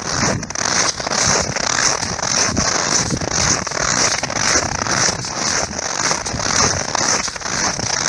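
Footsteps crunching in snow at a steady walking pace, each step a crackling squeak of compressed snow.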